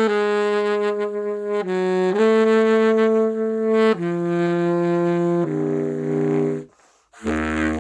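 Trumpet played through a clarinet mouthpiece, giving it a saxophone-like tone, playing held notes. It holds a long note with a brief dip lower, returns to the same note, then steps down twice. After a short break, a much lower note starts near the end.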